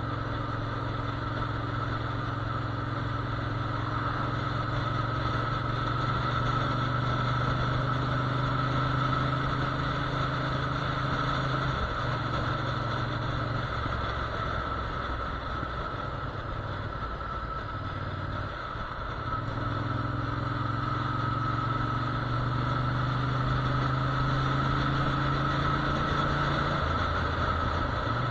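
Motorcycle engine running steadily while the bike cruises along a road. The engine note dips twice, about twelve and nineteen seconds in, then picks up again.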